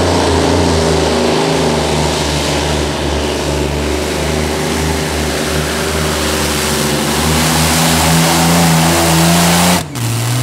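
Modified pulling tractor's Allison V12 engines running at full power under load as it drags the sled, their pitch holding fairly steady and climbing slightly, then stopping suddenly near the end.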